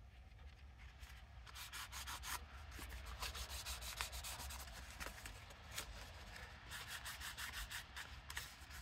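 Paper and fabric pieces of a handmade journal booklet rubbed and rustled by hands on a work surface: a quick, scratchy friction that grows busier about a second and a half in.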